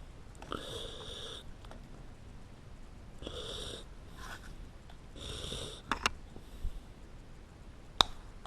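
A person breathing loudly through the nose, several short breaths about two seconds apart, while working at an Ethernet cable's sheath. Sharp clicks about six seconds in, and a single louder click near the end.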